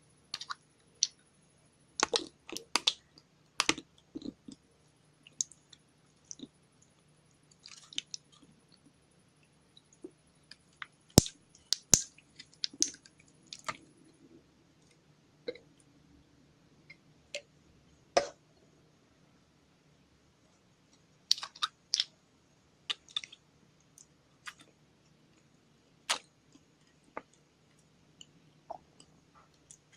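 Putty slime being mixed and squished by hand, giving irregular sticky clicks and pops with short pauses between them.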